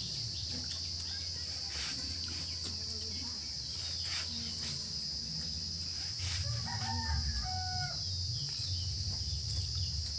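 Chickens clucking and a rooster crowing about seven seconds in, over a steady high-pitched insect drone.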